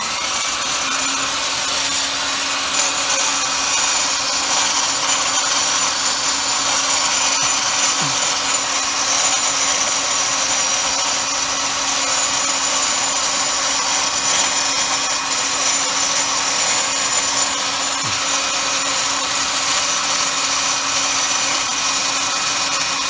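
Electric handheld power tool spinning up to a high whine, then running steadily at full speed.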